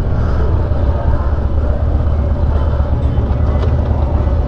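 Harley-Davidson Dyna's V-twin engine running at low speed through a Bassani Road Rage 3 exhaust, picked up by a mic mounted on the bike: a steady, low, pulsing exhaust note.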